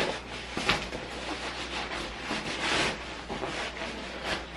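Nylon fabric rustling and rubbing as a stuffed sack of clothes is pushed down into an Osprey Exos 58 backpack and the pack is tugged into shape, with a short sharp scuff under a second in and a louder rustle a little past halfway.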